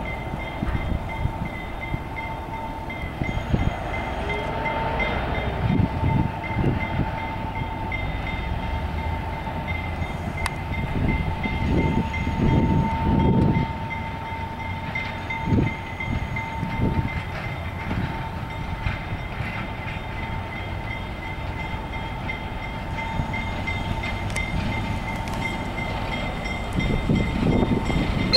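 EMD SW1 switcher locomotive's six-cylinder diesel engine running as the engine moves along, a steady low rumble that swells and fades several times.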